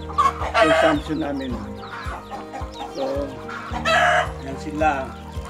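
Chickens clucking, with two loud crowing calls from a rooster, one about half a second in and another about four seconds in.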